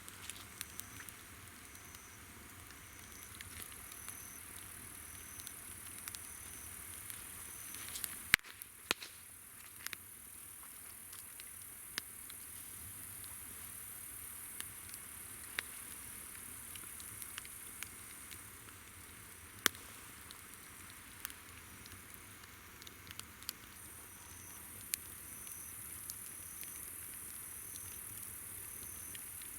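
Wood campfire crackling, with scattered sharp pops and snaps. Behind it, insects keep up a steady high trill and a regular chirp, a little more than once a second, that drops out for a stretch in the middle.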